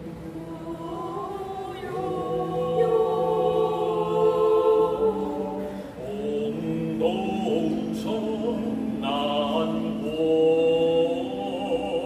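Mixed choir of men's and women's voices singing held chords that move from one harmony to the next, swelling louder about two seconds in and again near the end.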